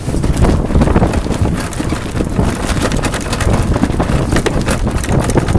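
Strong wind buffeting the microphone in gusts on a sailboat under way in 25+ knot winds, with choppy water splashing along the hull.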